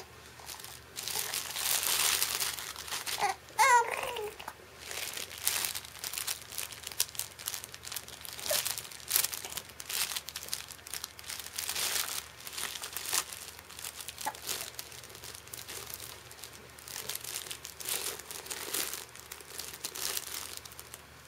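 Crinkle material inside a baby's soft cloth book crackling irregularly as the book is grabbed and shaken, with a baby's brief babble about four seconds in.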